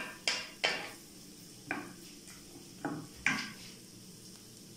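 Wooden spatula knocking and scraping against a nonstick frying pan while stirring vegetables sautéing in butter. About six quick strokes come in the first three and a half seconds, then only a faint sizzle.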